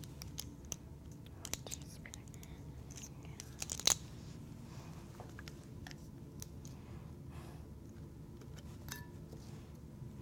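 Light clicks and taps of a vanilla bottle and measuring spoon being handled while a teaspoon of vanilla is added to the fudge mixture, with a louder clack about four seconds in, over a faint steady hum.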